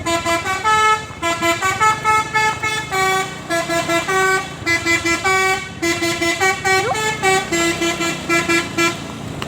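Bus telolet horn, a multi-tone musical air horn, playing a fast tune of short stepped notes that stops about nine seconds in.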